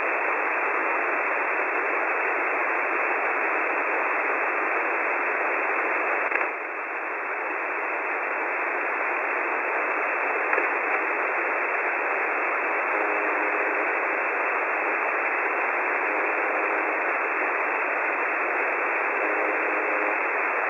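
Shortwave radio static from the UVB-76 station on 4625 kHz received through a web SDR: a steady hiss with faint buzzing tones coming through three times near the end, about three seconds apart. The hiss dips briefly about a third of the way in.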